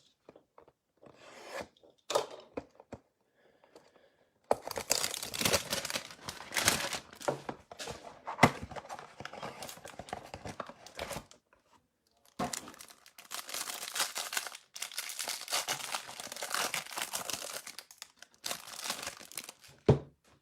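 Cardboard hanger boxes of 2021 Donruss football cards and their packaging being torn open and crinkled by hand: a few short rips, then two long stretches of tearing and crinkling of about six seconds each, and a shorter burst near the end.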